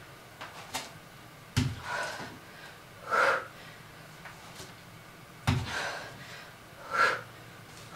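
A person breathing hard through push-ups, with sharp, noisy exhales, and two heavy thuds on the floor about four seconds apart, about a second and a half in and again near five and a half seconds.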